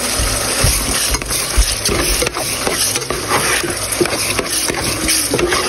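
Ground beef cooking in a pan in its own fat and juices, sizzling as a steady hiss with scattered small crackles.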